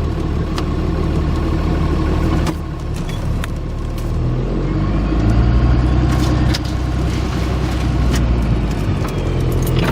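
A 15-year-old pickup truck's engine running under load as it pushes through snow, its note rising about four seconds in, with a few sharp knocks over it.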